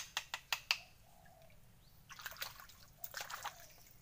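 A bolo knife striking and digging into wet mud in shallow water, working out mud clams: a quick run of sharp wet strikes in the first second, then two short bursts of splashing and sloshing.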